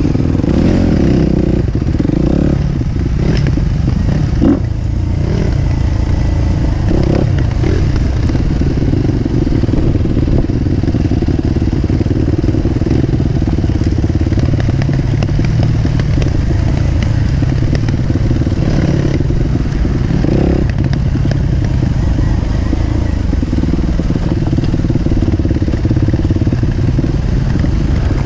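250 cc four-stroke dirt bike engine running steadily, heard close up, with a few brief knocks and clatter.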